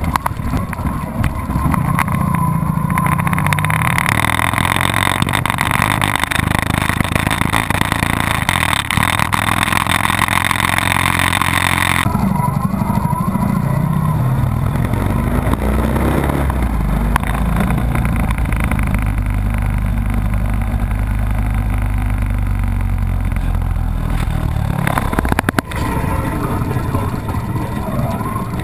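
Motorcycle engine running while riding, with heavy wind rush on the microphone that cuts off suddenly about twelve seconds in, leaving mostly the low engine note. There is a brief drop-out near the end.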